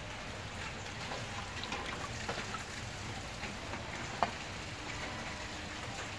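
Steady hiss of rain falling. Over it come scattered small clicks and handling noises as grated coconut is squeezed by hand through a metal sieve, with one sharp click about four seconds in.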